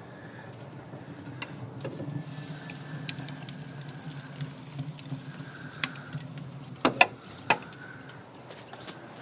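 Wood and coal fire crackling in the open firebox of a small steam boiler, with scattered small pops over a low steady hum. Three louder knocks come about seven seconds in.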